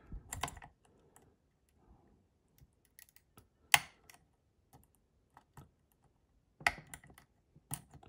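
Small metal clicks and taps of a pick and tension tool working the pins of a Lathams 6-pin brass dimple lock cylinder, scattered and irregular, with one sharper click a little under four seconds in and a short cluster of clicks near the end.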